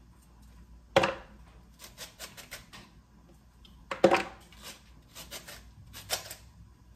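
Large kitchen knife shaving thin shreds off a raw head of cabbage: a run of short, crisp slicing strokes, with two louder sharp knocks about a second in and about four seconds in.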